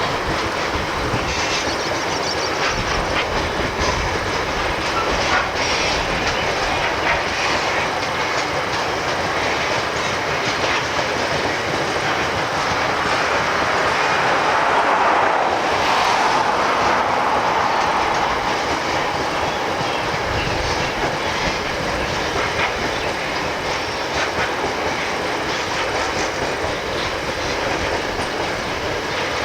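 Train hauled by DC-class diesel locomotives rolling past, its wheels rumbling and clicking over the rail joints, a little louder about halfway through.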